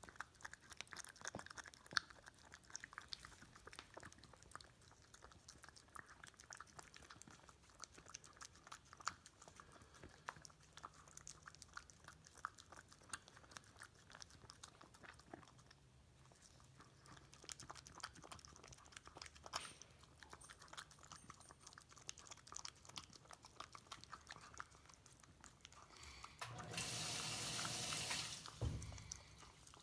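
Raccoon eating apple sauce: a steady run of small wet clicks and smacks from its mouth as it licks and chews. Near the end a louder, even rushing noise lasts about two seconds.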